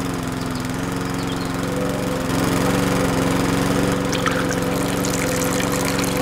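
Small electric motor of a miniature homemade sugarcane juice crusher running steadily with a constant hum, getting a little louder about two seconds in, with faint crackling over it as the rollers work.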